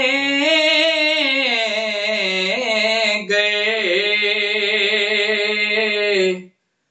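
A man singing an Urdu naat unaccompanied, drawing out one word in long, wavering held notes. His voice breaks off briefly a little over three seconds in and stops shortly before the end.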